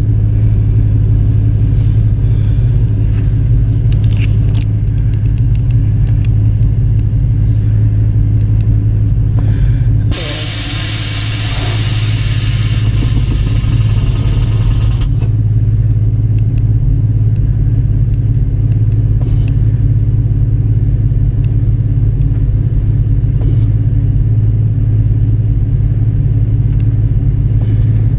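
Steady low hum of the car's engine running, with the Air Lift 3P air-suspension system working through its automatic calibration. About ten seconds in comes a hiss of air lasting about five seconds, the valves letting air out of the bags.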